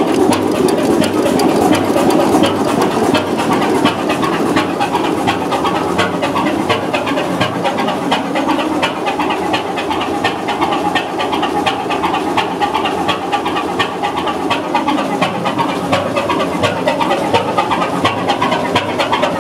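Körting stationary diesel engine with air-blast fuel injection, running steadily with a fast, even beat of knocks.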